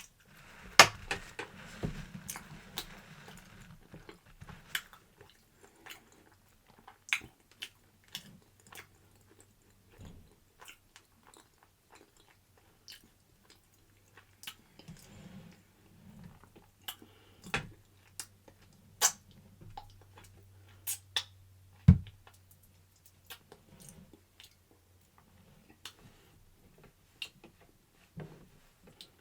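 Kitchen handling sounds: irregular light clicks and taps, with soft wet noise in the first few seconds and a faint low hum behind them. A sharper knock comes about two-thirds of the way through.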